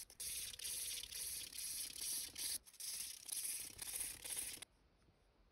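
Hand-sanding the steel blade of an antique drawknife with an abrasive pad: quick back-and-forth scraping strokes, about two a second. The strokes stop suddenly about four and a half seconds in.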